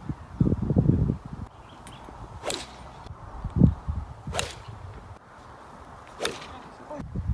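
A golf driver strikes a teed ball three times, each a sharp crack with a short swish, spaced about two seconds apart. Low thumps come around half a second in and again just before the second strike, and they are as loud as the strikes or louder.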